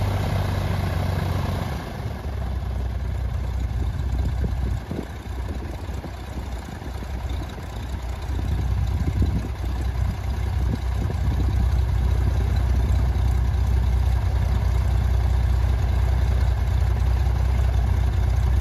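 Maule M5's Lycoming piston aircraft engine and propeller running on the ground at low power. The sound dips and turns uneven a few seconds in, then settles into a steady, louder drone for the rest.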